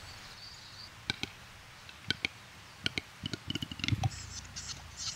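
Male capercaillie's display song: dry double clicks about a second apart quicken into a rapid rattle, a loud low pop just before four seconds in, then a high hissing, scraping whetting phrase.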